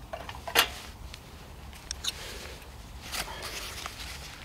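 A few light clicks and taps of small metal stove parts being handled, with one sharper click about half a second in.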